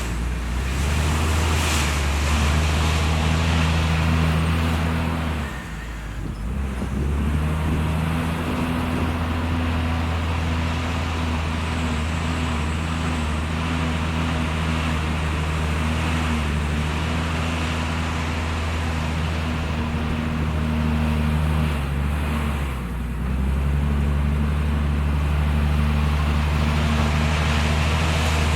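Heavy construction machine's diesel engine running steadily with a low-pitched hum. It dips briefly about six seconds in and again around 23 seconds in, then picks back up.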